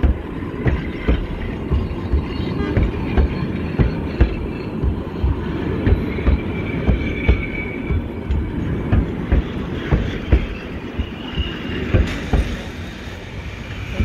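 Heritage railway passenger carriages rolling slowly past, their wheels clicking and knocking irregularly over the rail joints. High-pitched wheel squeal comes in a few times, from about six seconds in and again near the end.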